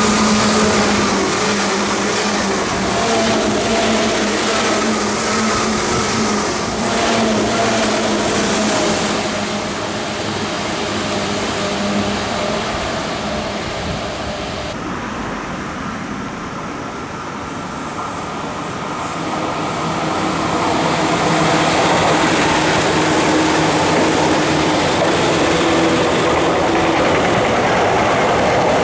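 Tokyu 8500 series electric train running, its traction motors giving a loud, steady whine of several tones over the rumble of the train. The sound changes abruptly about halfway through, and the motor whine builds up loud again near the end.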